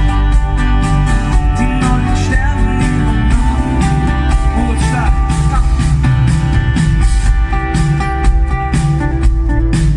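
Live band music: an instrumental passage of the song, with guitar over a steady beat.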